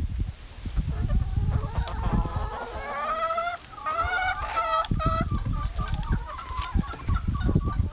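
A flock of hens clucking and calling as they forage, with a run of rising, drawn-out calls in the middle, over an intermittent low rumbling.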